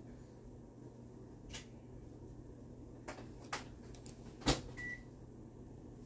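Countertop microwave oven being loaded and set: a few clicks and knocks of the door and dish, the loudest about four and a half seconds in, then a single short keypad beep.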